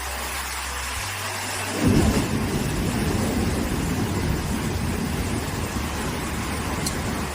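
Typhoon storm noise: heavy rain and wind rushing steadily, with a sudden loud low rumble about two seconds in that goes on as a gusting roar.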